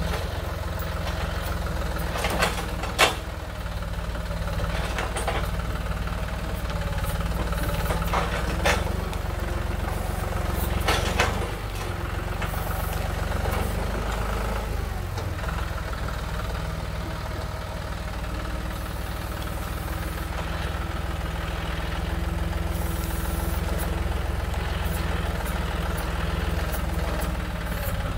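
John Deere utility tractor's diesel engine running steadily while its front loader pushes a log toward a portable sawmill. A few sharp knocks stand out, the loudest about three seconds in.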